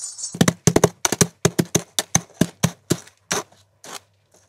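A rapid run of sharp taps or knocks, about five a second, growing fainter and thinning out near the end.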